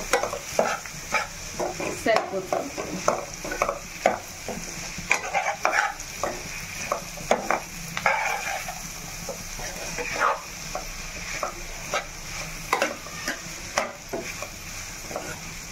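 Onions, green chillies and curry leaves sizzling in oil in a steel pan while a metal spatula stirs through them, scraping and clacking against the pan at irregular intervals over a steady sizzle. The ginger-garlic paste is being fried in until its raw smell is gone.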